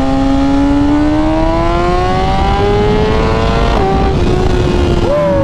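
BMW M1000RR inline-four with titanium Akrapovic headers and SC Project slip-on exhaust accelerating hard, its note climbing steadily for about three and a half seconds, dropping suddenly at an upshift, then easing off. Near the end the revs jump sharply and fall back. Heavy wind rumble on the helmet microphone throughout.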